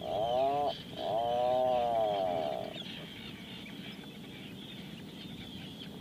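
Atlantic puffin calling: two drawn-out calls that each rise and then fall in pitch. The second call is longer, about two seconds, and after it only a faint background remains.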